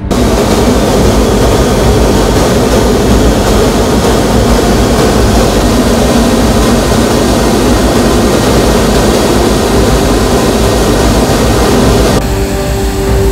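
Loud, steady jet engine noise from fighter aircraft in flight, an even rush with no breaks that changes about twelve seconds in.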